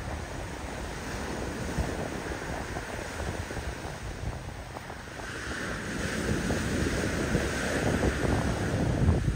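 Sea waves surging and washing against a rock breakwater, with wind buffeting the microphone in low rumbling gusts. The wash and wind grow louder over the second half.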